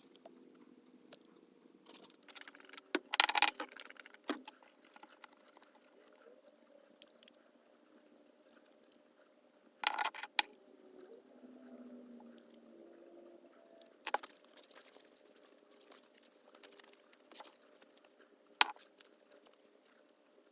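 Scattered clicks, knocks and light clatter of small hard objects being handled, with the loudest clusters about three seconds in and again about ten seconds in.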